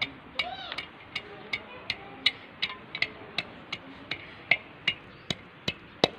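Wooden pestle pounding garlic cloves in a terracotta mortar bowl, crushing them for a garlic-ginger paste. Steady knocks about two and a half a second, each with a brief ring from the clay.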